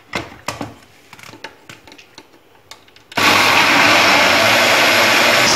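A few light clicks and knocks. Then, about three seconds in, an electric mixer grinder switches on suddenly and runs loud and steady, blending cooked mango pulp in its jar.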